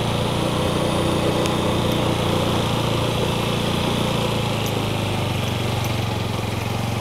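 A vehicle engine running steadily at low speed, with an even low hum throughout.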